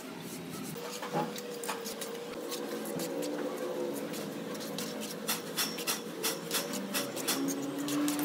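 Steel mason's trowel scraping and tapping wet cement mortar on a hand board, with short sharp scrapes and clicks that come thicker and faster from about five seconds in.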